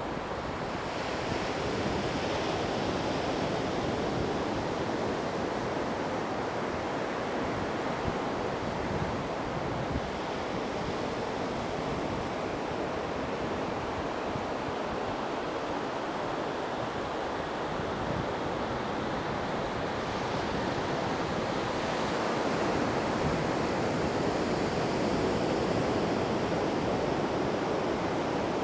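Steady rushing of surf on the beach, with wind buffeting the microphone; it swells a little louder near the end.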